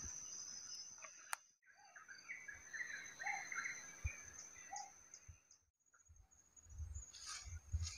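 Faint forest ambience: an insect's steady high-pitched trill, with a run of short chirping bird calls a couple of seconds in and some rustling near the end.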